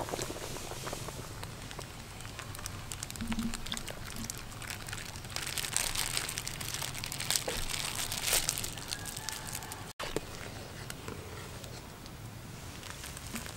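Plastic bag crinkling as a milky liquid is squeezed and poured from it into a steaming pot, with small crackles throughout that are densest from about six to eight and a half seconds in.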